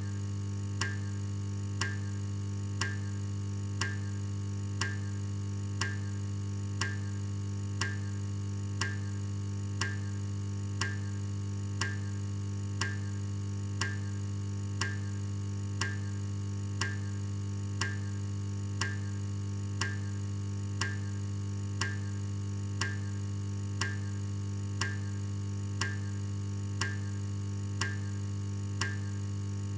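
A steady low hum with a sharp tick about once a second.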